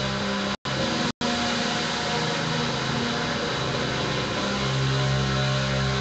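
Drone guitar music: several sustained low tones layered over a thick noisy wash. The lowest layer swells about four and a half seconds in, and the sound cuts out for an instant twice within the first second or so.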